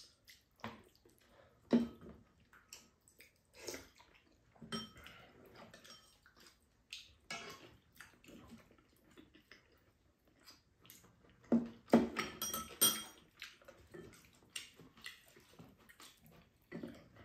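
Chopsticks and spoons clicking and scraping against ceramic bowls and a frying pan of udon as two people eat, in scattered single clicks. A quick run of louder, ringing clinks comes about twelve seconds in.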